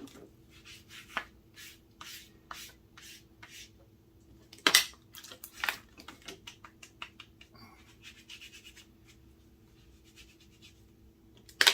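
Hands working leather and handling tools on a bench: scattered light taps, clicks and rubbing, with one louder knock nearly five seconds in. A faint steady hum runs underneath.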